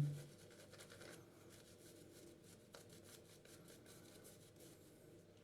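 C.V. Heljestrand safety razor scraping through lathered stubble on a shaving pass: a faint, fine crackle in runs of strokes, with a short pause about a second in.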